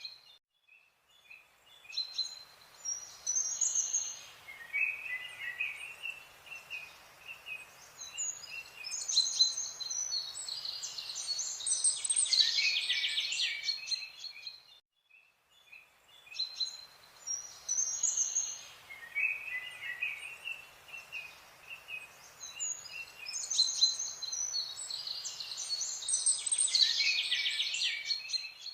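Birds chirping and trilling in quick high bursts over a faint steady hiss, with short gaps about two seconds in and about fifteen seconds in; the same stretch of birdsong, about fourteen seconds long, plays twice.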